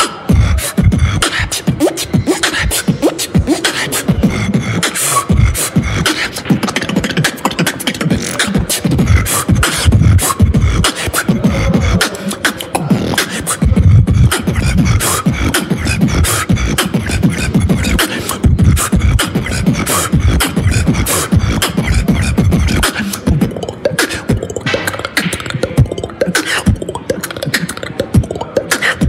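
A man beatboxing close to the microphone: a fast, unbroken rhythm of mouth-made kick drums, snares and sharp clicks.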